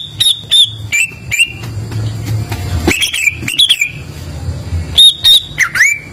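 Greater green leafbird (cucak ijo) singing: loud whistled notes, each a sharp upward sweep onto a briefly held high tone, in three quick clusters near the start, the middle and the end.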